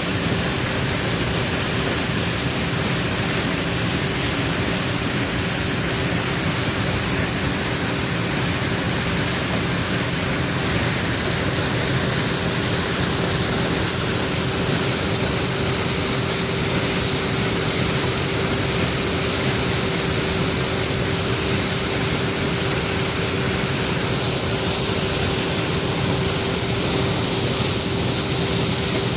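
John Deere 9550 combine running steadily while harvesting corn: a loud, even rush of machinery noise with a constant hum underneath.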